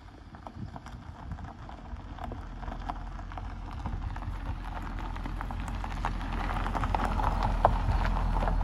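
C6 Corvette V8 with its mufflers deleted, running at low speed and getting steadily louder as the car rolls up and passes close by. Gravel crackles under its tyres.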